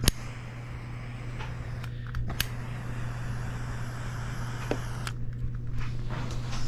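Small handheld butane torch burning with a steady hiss as its flame is played over plastic, thinning briefly about two and five seconds in. A steady low hum runs underneath, and there is a sharp click right at the start.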